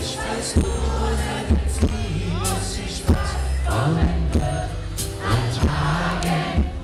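Live pop band playing, with bass, drums and guitar, and a male voice singing over it, backed by backing vocalists.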